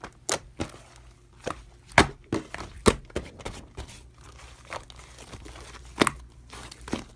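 Clay slime being squished and pressed by hand, giving irregular small pops and crackling clicks, a few of them sharper, about two and three seconds in and again near six seconds.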